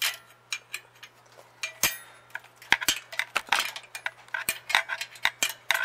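Steel flat-bar muffler bracket clinking and tapping against metal as it is worked onto a mounting bolt: irregular sharp clicks, sparse at first and coming much faster in the second half.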